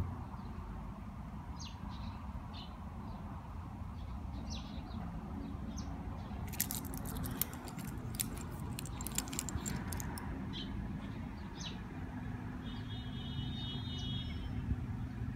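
Metal watch bracelet links clicking and clinking in a quick cluster as the watch is turned in the hand, over a steady low rumble with a few short high chirps.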